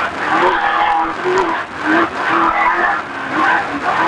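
Desert race truck's engine heard from inside the cab, running hard at high revs, its pitch dipping and climbing again about once a second as the throttle comes off and back on, over loud road and wind noise.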